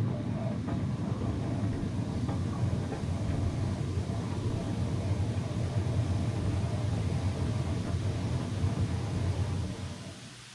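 Hot tub water jets running, the water churning and foaming with a steady low rushing rumble that dies away near the end as the jets shut off.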